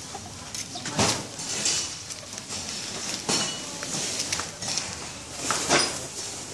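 Two roosters scuffling on concrete: irregular knocks and swishes, the loudest about a second in, past three seconds and near six seconds.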